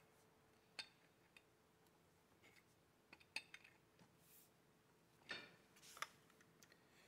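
Faint, scattered metal clicks and clinks, a handful of them, from an adjustable wrench and a new pressure-washer pump with a brass manifold being handled against its aluminium mounting bracket.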